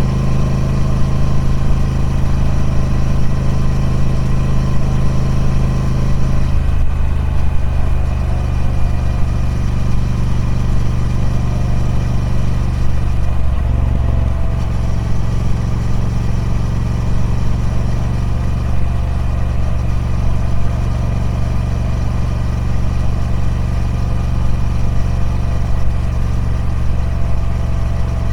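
Triumph Speed Twin 1200's parallel-twin engine running through its stock exhaust, with a steady note. The tone changes about a third of the way in and changes again about halfway.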